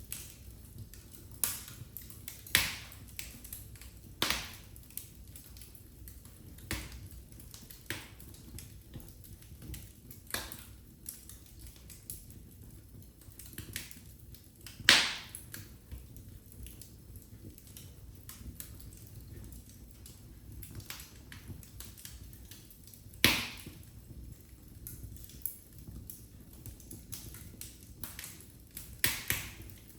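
Wood fire in a fireplace crackling: irregular sharp pops and snaps over a low steady rumble, with the loudest pops about halfway through and again about three quarters through.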